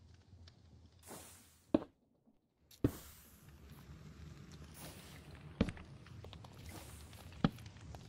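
Four sharp, separate knocks over a low steady rumble, with a brief dropout to near silence about two seconds in.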